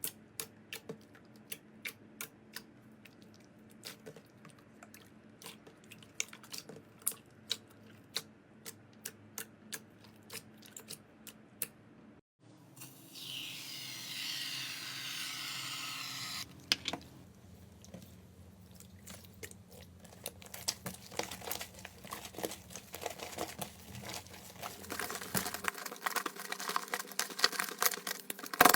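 Slime being handled up close across several clips. First come sharp separate clicks and pops about twice a second, then a few seconds of steady crinkling hiss, then crackling that grows denser and louder near the end.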